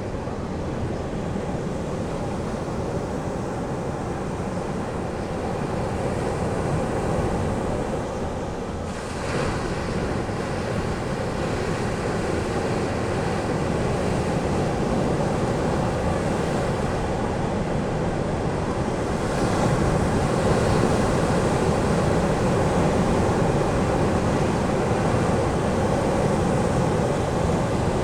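Ocean surf breaking and washing ashore in a continuous rush, swelling louder about nine seconds in and again about twenty seconds in.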